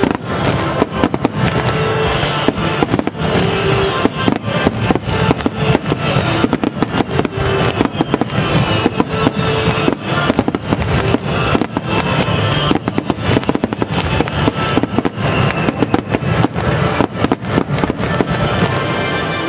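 Dense barrage of aerial firework shells bursting in rapid succession, many sharp bangs a second, with music playing underneath.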